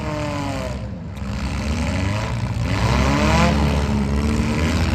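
Demolition derby cars' engines revving over a steady low rumble, one engine's pitch falling in the first second and climbing again about three seconds in.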